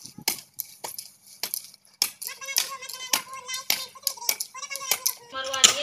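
A hoe (phawda) chopping into dry, hard-packed soil, with a quick run of sharp strikes. A faint held melody sounds underneath from about two seconds in.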